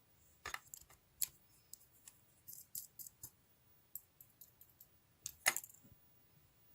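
Slime being squeezed and stretched by hand, making irregular sharp little clicks and pops. Two louder pops come about half a second in and about five and a half seconds in.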